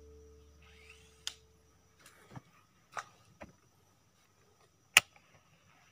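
A few sharp, separate clicks and knocks of fishing tackle being worked from a small boat during a lure retrieve; the loudest comes about five seconds in.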